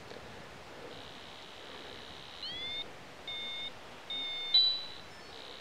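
Electronic beeping: a short rising chirp about two and a half seconds in, then two flat beeps in quick succession, the second ending in a brief louder blip.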